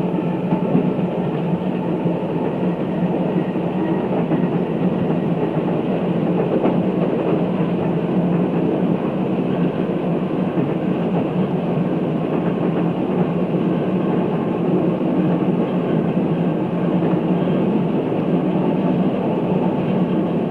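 Chicago, Aurora and Elgin electric interurban car running along the track at speed: a steady rumble of steel wheels on rail with some clicking.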